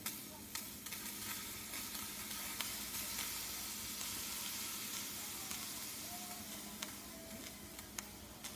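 Pot of water at a full rolling boil on an electric coil burner, foaming up to the rim: a steady hissing bubble, with a few sharp pops of bursting bubbles.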